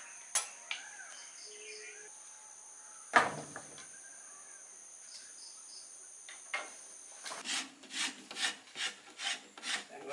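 Quick, evenly paced scraping strokes, about four a second, as a cinnamon stick is worked by hand; they start about seven seconds in. Before that, birds call over a steady high insect drone, with one sharp wooden knock about three seconds in.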